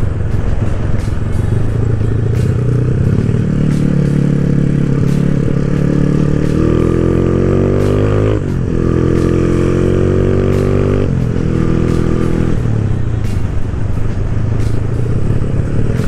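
Motorcycle engine pulling hard under acceleration, its pitch climbing, dropping sharply at a gear change about eight seconds in, climbing again, then easing off near twelve seconds. Clicks and knocks from riding over a rough, broken road surface come through it.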